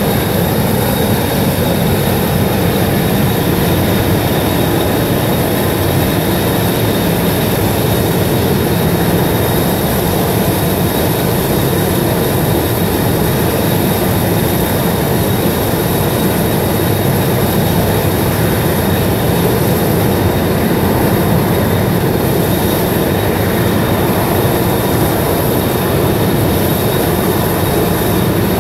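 Steam venting from a ruptured underground steam pipe: a loud, steady rushing noise.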